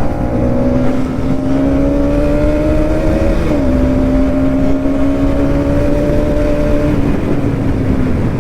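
Bajaj Pulsar NS200 single-cylinder engine pulling under way, its pitch climbing slowly, then dropping suddenly about three and a half seconds in at a gear change and holding near steady after, over a steady rumble of wind and road noise.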